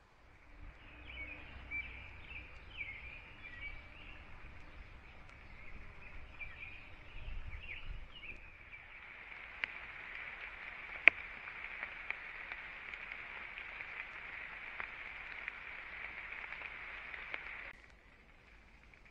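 Scattered bird chirps and short whistles over a low rumble, then a steady high-pitched night chorus that cuts off abruptly near the end. A single sharp click about halfway through is the loudest sound.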